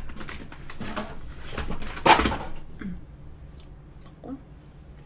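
Paper tissue rustling as it is pulled out and crumpled to wipe the mouth, with one louder rustle about two seconds in.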